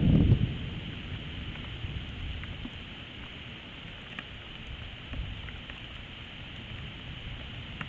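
Steady rain hiss with a few faint drop-like ticks, while a low rumble of thunder dies away in the first half second.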